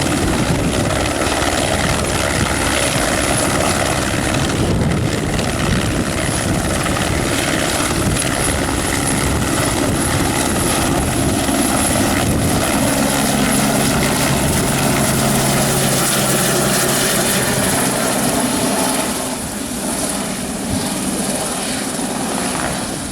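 Aerospatiale AS350B helicopter running loud and steady: its single turboshaft gives a thin high whine over the beat of the rotor. The sound eases off a little over the last few seconds.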